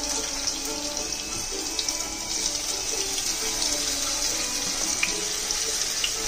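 Steady sizzling hiss of diced potato, peanuts and chillies frying in oil in a kadhai as washed, still-damp barnyard millet (bhagar) is poured in to roast.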